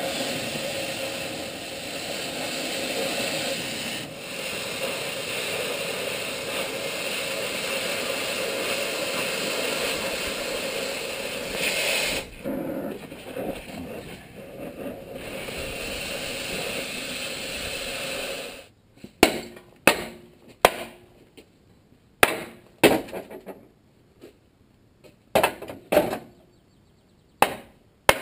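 Oxy-acetylene cutting torch hissing steadily as it cuts rivets on a steel truck frame, faltering briefly about twelve seconds in. From about eighteen seconds in, a hammer strikes the steel frame hard, about nine separate blows, knocking at the torch-cut rivets.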